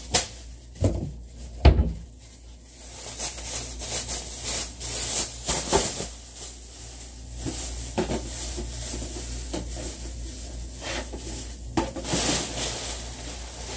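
Thin plastic garbage bag rustling and crinkling as it is handled while a wastebasket is emptied, with a few sharp knocks in the first two seconds.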